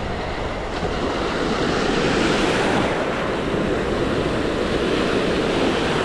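Sea surf breaking and washing up a beach, a continuous rushing that swells about two seconds in, with wind rumbling on the microphone.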